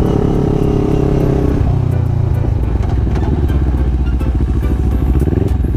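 Motorcycle engine running while the bike is ridden, its higher tones falling away about a second and a half in as the note settles lower.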